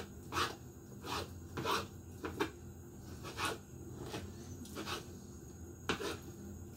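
Kitchen knife slicing raw chicken breast into strips on a wooden chopping board: short, irregular cutting and scraping strokes, about one a second, the sharpest near the end.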